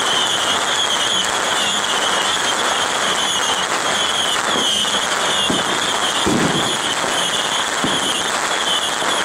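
Strings of firecrackers going off in a continuous dense crackle.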